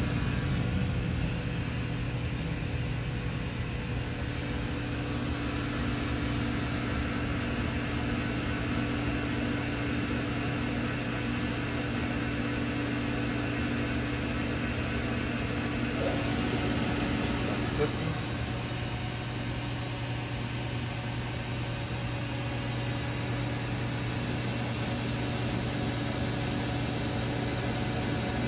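Steady machinery hum with a constant low drone and even background noise, and a single short click about eighteen seconds in.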